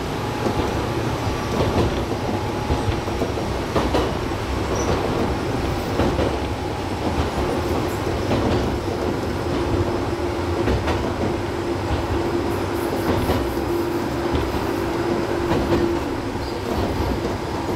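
Gakunan Railway electric train running between stations, heard from the driver's cab: a steady rumble with the wheels clicking over rail joints every couple of seconds, and a steady whine through the middle stretch.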